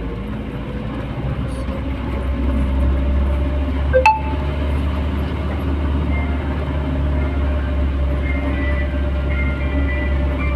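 Vehicle running along a paved road, heard from inside the cab: a steady low drone with road noise, and a single sharp clink about four seconds in.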